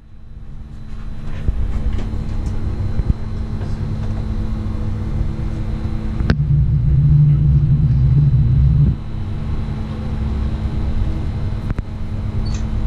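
Steady low rumble and hum of a ship's engine and machinery heard from inside the vessel, with a faint constant high whine. About six seconds in a click is followed by a louder low rumble that lasts about three seconds.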